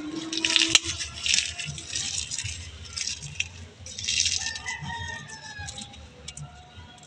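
Crushed eggshells crackling and rattling in a hand as they are crumbled and scattered onto potting soil, in several bursts. A rooster crows in the background about four and a half seconds in.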